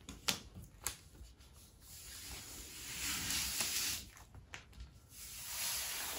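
Plastic spreader and hands rubbing over vinyl decal application tape on a car roof. A couple of light clicks in the first second are followed by two stretches of scraping hiss, about three seconds in and again near the end.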